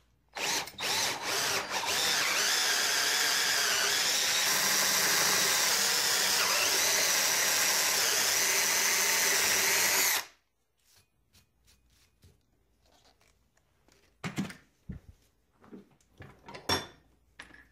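Cordless drill with a step bit boring out the centre hole of an aluminium plate held in a vise: a few short trigger blips, then about eight seconds of steady drilling that stops abruptly. A few light clicks and knocks follow near the end.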